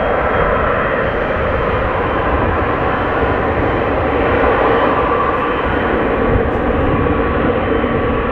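Boeing 747 jet engines running loud and steady: a dense rushing noise with a faint steady whine in it.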